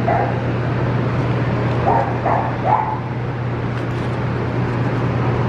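Puppies giving a few short, high yips and whimpers: one at the start and three close together about two seconds in, over a steady low hum.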